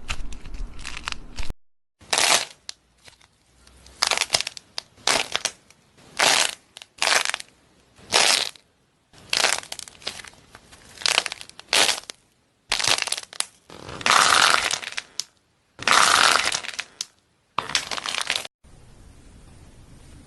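Crunchy food-shaped slime being squeezed and pressed by hand: a string of short crackling crunches, about one a second.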